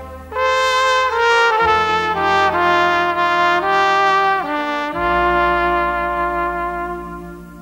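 Trumpet playing a slow melody over a held low accompaniment. The phrase starts a moment in, changes note every half second or so, then settles on one long note about five seconds in, which fades away near the end.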